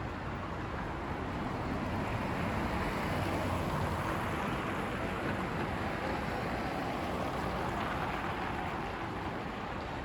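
Outdoor city street ambience: a steady rush of traffic and wind noise that swells for several seconds in the middle and then eases.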